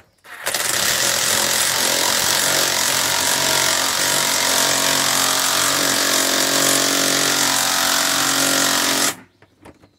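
Cordless impact driver running steadily as it drives a socket down the nut on a pool filter tank's clamp band, tightening it. Starts about half a second in and stops near the end.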